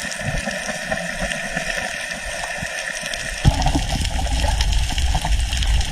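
Water sloshing and trickling with small ticks, then a sharp knock about halfway through, after which a steady low rumble joins.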